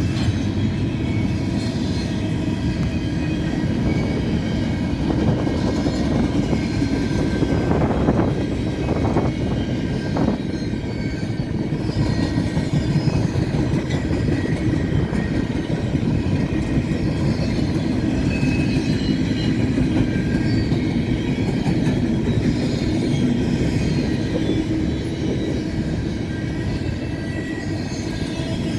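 Intermodal freight cars rolling past: a steady rumble of steel wheels on rail with faint high squealing tones from the wheels, and a few knocks about eight to ten seconds in.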